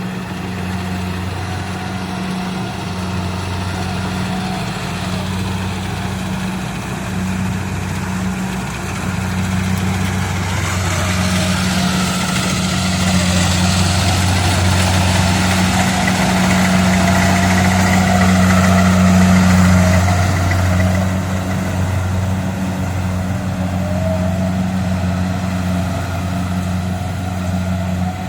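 Kubota DC-70 combine harvester's diesel engine running steadily with a deep hum. It grows louder and harsher from about ten seconds in, peaks near twenty seconds, then eases back.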